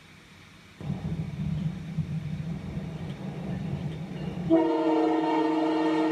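A train running with a steady low rumble. About four and a half seconds in, its horn sounds one long, loud blast of several tones held together.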